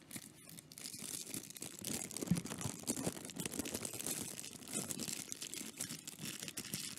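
Clear plastic sleeve crinkling and rustling as fingers work a fountain pen out of it, held right against the microphone for close-up crackles and small clicks.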